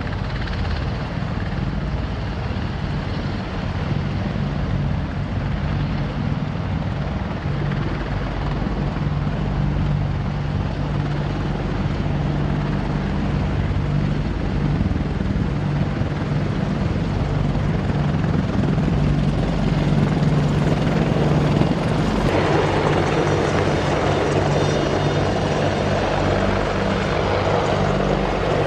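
Military helicopters running, a steady low drone of rotors and turbine engines. About 22 seconds in, the sound changes abruptly to a brighter, hissier turbine-and-rotor noise.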